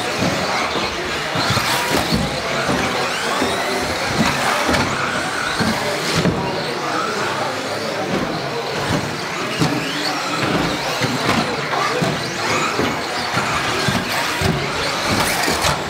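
Several 1/10-scale 4WD electric RC buggies racing, their motors whining up and down in pitch as they accelerate and brake.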